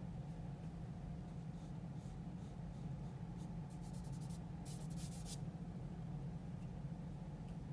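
Graphite pencil drawing on paper: scattered light strokes, a quick run of short strokes about three and a half seconds in, then a denser stroke lasting about half a second just after, over a steady low hum.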